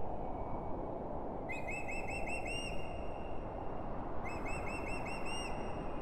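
A songbird sings two short phrases, each a quick run of about six arched notes, about three seconds apart. Under it runs a steady low rushing noise.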